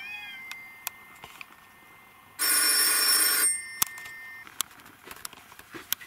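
A telephone rings once, for about a second, about two and a half seconds in, with faint clicks and taps around it.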